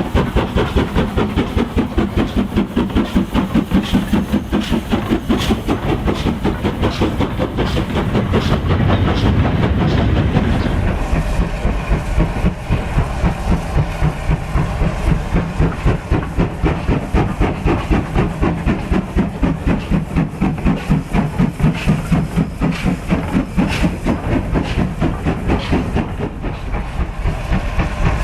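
OO gauge model steam locomotive and train running along the track, with a steady, even beat of about two to three strokes a second. A deeper rumble swells about eight to ten seconds in.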